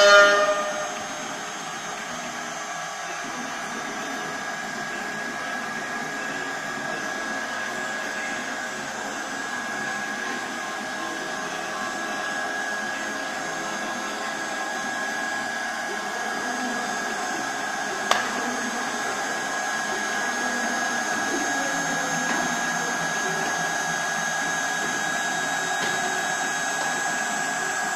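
CNC router spindle motor running at speed with a steady high whine over a noisy hum, growing slightly louder; a single sharp click about 18 seconds in.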